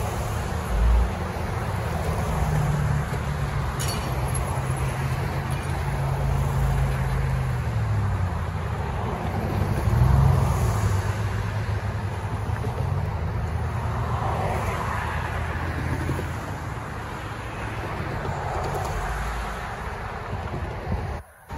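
Road traffic: cars and light trucks driving across a railroad grade crossing one after another, with engines running and tyres on the pavement, swelling and fading as each passes. The sound drops out briefly near the end.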